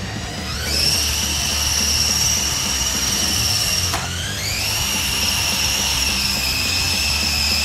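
Small electric motor of a remote-controlled LEGO Technic car, a BuWizz motor in direct drive, whining as it spins up. The pitch rises to a steady high whine within the first second, drops off about four seconds in, then spins up again and holds steady.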